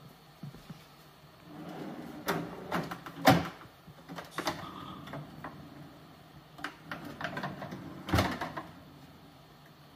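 Wooden pull-out shelves in a corner kitchen cabinet sliding on their runners as they are pushed in, with sharp knocks as they bump into place. The loudest knock comes a little after three seconds in, and another strong one comes about eight seconds in.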